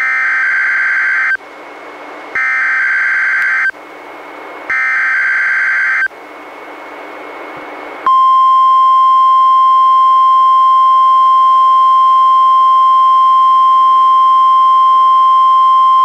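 NOAA Weather Radio Required Weekly Test received on a Reecom R-1630 weather radio: three bursts of the SAME digital alert header, each a harsh data screech about a second long, with radio hiss in the gaps. About eight seconds in, the 1050 Hz warning alarm tone comes on, one steady loud tone.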